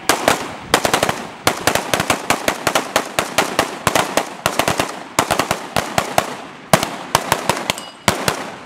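Several AR-15-style rifles firing rapid, overlapping shots: dozens of sharp cracks in an uneven rhythm.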